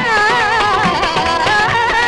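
Qawwali music: a wavering, ornamented melody line over hand-drum beats.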